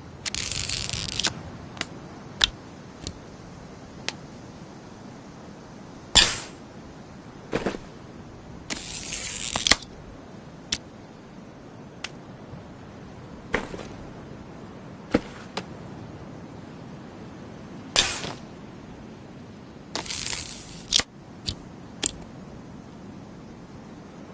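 Crossbow mechanism sounds: a string of sharp clicks and snaps at irregular intervals, two of them loud, with a few rasping noises about a second long in between.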